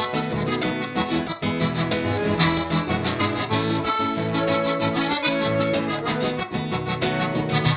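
Gaúcho band playing live: an accordion leads an instrumental introduction over a steady rhythmic accompaniment.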